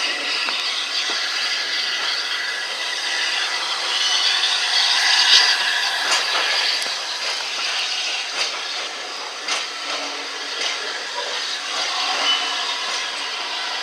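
A steam-hauled train of carriages moving off slowly behind LNER A3 locomotive 60103 Flying Scotsman, heard from an open carriage window: a steady hiss and rolling noise, with occasional clicks of wheels over rail joints and points from about halfway through.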